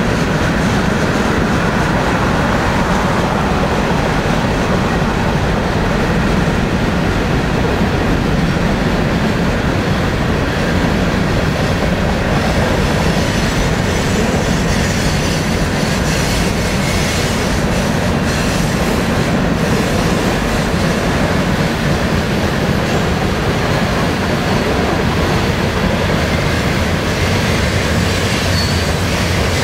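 Freight train cars rolling past close by on a curve: a steady rumble of steel wheels on rail, with a faint high wheel squeal near the end.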